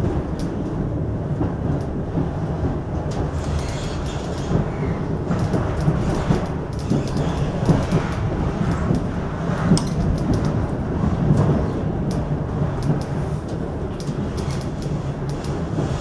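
Passenger carriage rolling along the track, heard from inside the car: a steady rumble of the wheels on the rails with irregular clicks and knocks as the wheels run over the track.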